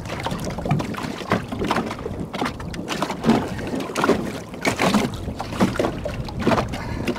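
Irregular knocks and splashes as a catfish is hauled by hand out of the water on a trotline line beside a small boat, with wind on the microphone.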